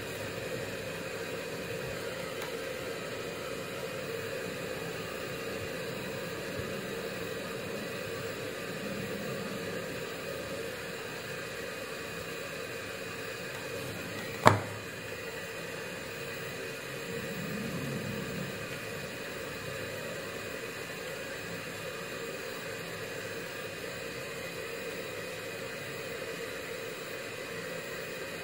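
Steady background hiss with a faint hum, broken once about halfway through by a single sharp click.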